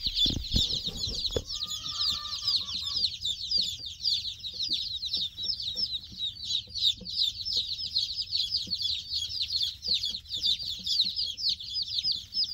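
Dozens of day-old chicks peeping nonstop, a dense chorus of short, high, downward-sliding cheeps. A few knocks come in the first second and a half as the brooder's wooden, wire-mesh lid is handled, and a single lower call sounds briefly about two seconds in.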